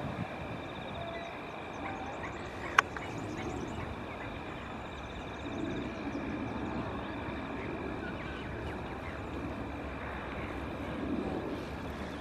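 Steady outdoor background noise like wind or a distant rumble, with a faint steady high-pitched tone and one sharp click about three seconds in.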